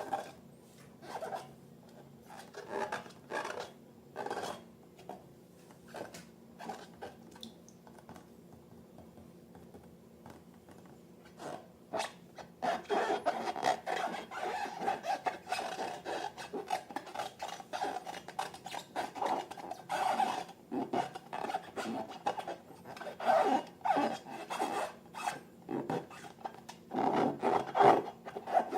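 Slime being worked by hand or tool, giving sticky rubbing and scraping sounds. These come in short separate strokes for the first dozen seconds, then turn continuous and busier.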